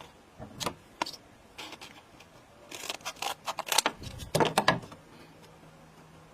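Irregular clicks, taps and short scrapes of hand work on a small repair. They are sparse at first, then come thick and loud from about three to five seconds in.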